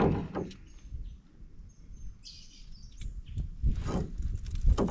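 A small trevally held in the hand, making low grunts as it is unhooked. The grunts are the croaking noise these fish make when landed, and they grow louder toward the end. A brief hiss comes about two seconds in.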